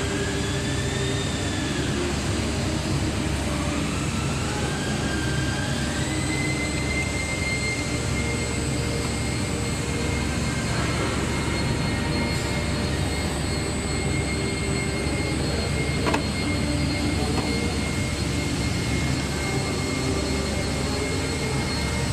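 Powder-filling machinery running steadily with a low hum and a whine that rises in pitch over the first six seconds, then holds. A single sharp click sounds about sixteen seconds in.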